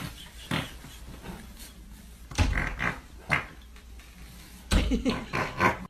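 A woman trying to hold in her laughter while breaking wind, from a phone recording: a few short bursts of sound over a steady low hum.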